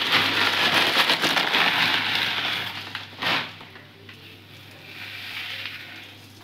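Brittle dry vermicelli being crushed and snapped by hand, the strands crackling as they drop into an iron kadhai. The crackling is dense for the first two seconds or so, with one sharp crunch about three seconds in, then softer.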